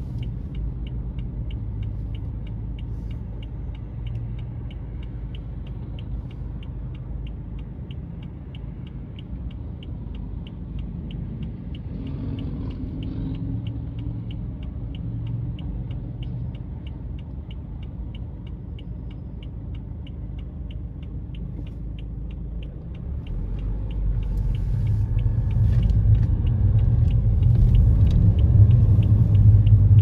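Car's turn-signal indicator ticking about three times a second inside the cabin over a low engine rumble while the car waits at an intersection. Near the end the rumble and road noise rise as the car pulls away through the turn, and the ticking stops.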